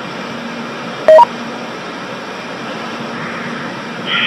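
Open radio link hissing steadily, with one short two-tone electronic beep, a lower tone then a higher one, about a second in. A brighter burst of static starts just before the end.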